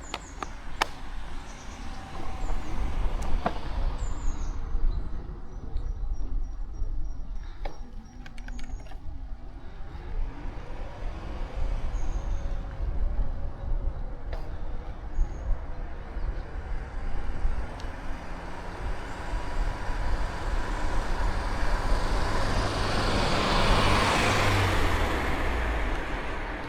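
Wind rumble on the microphone and road noise from a bicycle ride. Near the end a motor vehicle passes, a swell of noise that rises and then fades.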